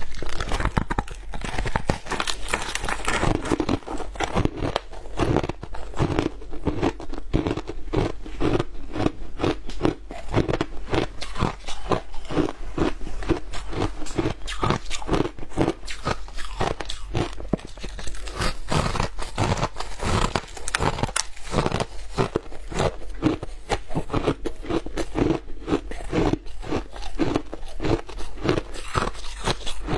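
Mouth biting and chewing chunks of frozen, dyed shaved ice, close-miked: a dense, continuous run of rapid crisp crunches.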